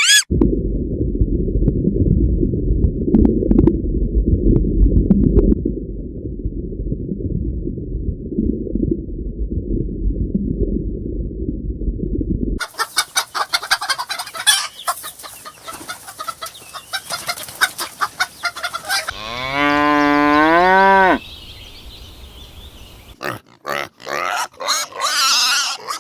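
A loud, muffled low noise for about twelve seconds, then fowl clucking and chattering, then a cow's single moo of about a second and a half that dips and rises in pitch, then scattered clicks near the end.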